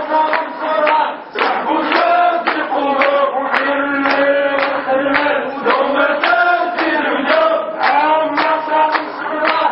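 A group of men chanting protest slogans in unison, with one voice amplified through a hand-held megaphone.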